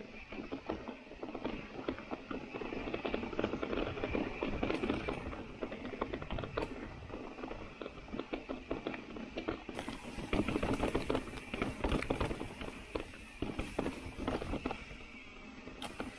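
Mountain bike riding down a rough dirt and rock trail: tyres crunching over gravel and stones, with a constant irregular clatter and rattle as the bike jolts over the bumps.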